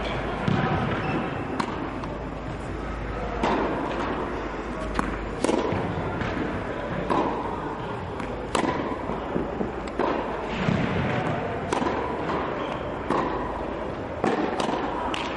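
Tennis balls struck by a racket and bouncing on an indoor court, a sharp hit every second or so, echoing in the hall.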